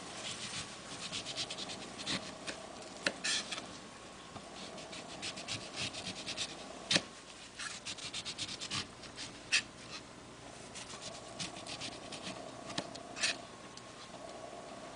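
Kitchen knife cutting grapefruit peel and pith away in runs of quick scratchy strokes, with a few louder sharp clicks in between.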